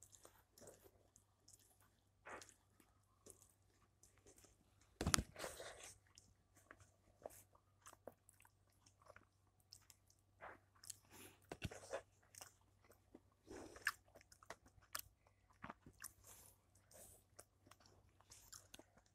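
Faint sounds of a person eating rice and vegetable curry by hand from a steel thali: quiet chewing, fingers mixing rice against the plate, and scattered soft clicks, with a louder knock about five seconds in.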